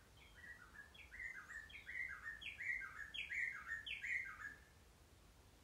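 A bird singing in the bush: a quick run of short falling whistles, about four a second, alternating higher and lower notes, growing louder and then stopping about four and a half seconds in.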